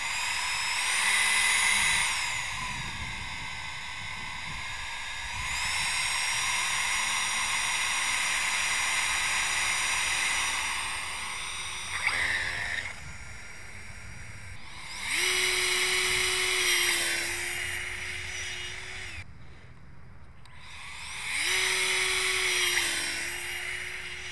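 High-pitched electric whine of an RC fan car's 3D-printed downforce fan and drive motor, the fan at half throttle. It swells and fades several times, its pitch gliding up and down as the car is throttled, with a short click about halfway through.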